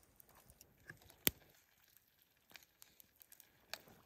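Quiet handling noises: scattered small clicks and faint rustling, with one sharper click just over a second in.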